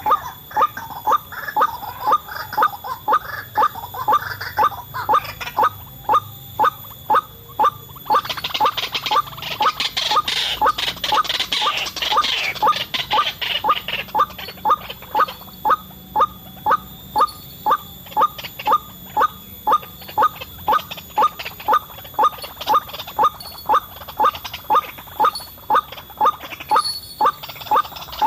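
White-breasted waterhen calling, a short call repeated about twice a second in a steady, even rhythm. A louder, higher chirring sound joins in from about 8 to 14 seconds.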